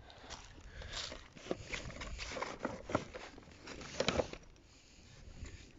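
Hands rummaging through a horse grooming bag: fabric rustling and brushes and plastic items knocking together in irregular clicks, with a cluster of sharper knocks about four seconds in.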